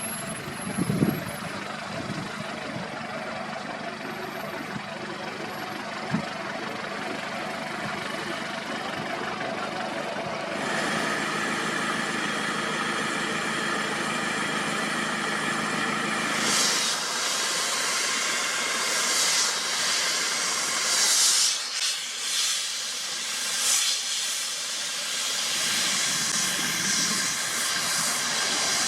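Heavy road-paving machinery running: a steady engine hum with a hiss over it, which turns abruptly brighter and more hissing about ten seconds in and again about sixteen seconds in, then swells and dips in loudness.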